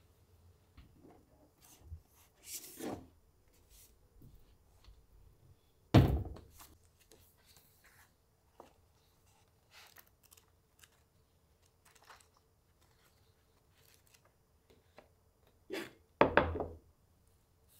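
Small handling sounds in a quiet room: soft rustles and light clicks of books and pages, a sharp thunk about six seconds in, and near the end a quick pair of knocks as a ceramic plate is set down on the wooden table.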